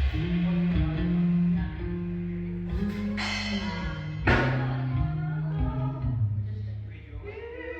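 Band music without singing: a bass guitar holds and changes notes under guitar, with two crash-like hits about three and four seconds in.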